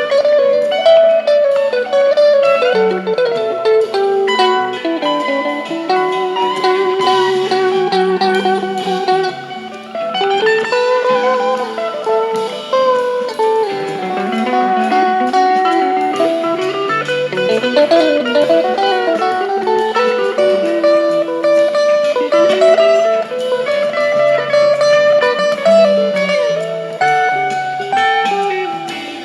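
Stratocaster-style electric guitar through a Fender Blues Junior tweed amp playing lead lines with slides and bends, over a recorded rock band backing track with bass.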